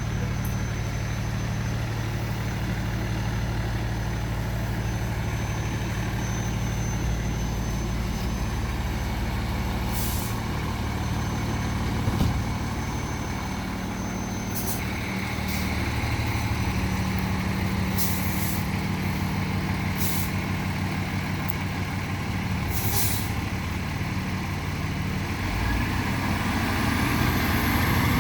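Fire engine's diesel engine idling steadily, with several short hisses of air from its air brakes.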